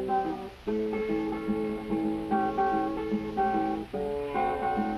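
Instrumental acoustic guitar music, with picked and strummed notes.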